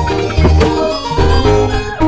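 Background music: a melody of short pitched notes over a drum beat.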